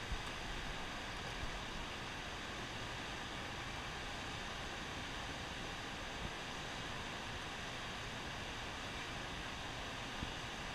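Steady rushing of turbulent dam outflow water, an even continuous wash, with a few faint brief knocks.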